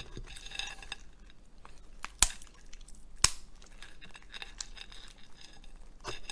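Shrimp shell being cracked and peeled by hand: light crackling with two sharp clicks about a second apart.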